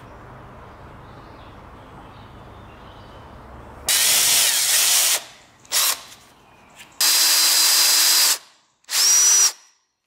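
Power drill boring into a wooden scythe handle in three short runs, with a brief blip between the first two, starting about four seconds in. The motor spins up with a rising whine at the start of the last run.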